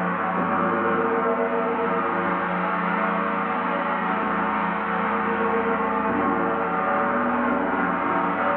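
Gong sounding in a steady, sustained wash of many overlapping ringing tones, with no distinct strikes standing out.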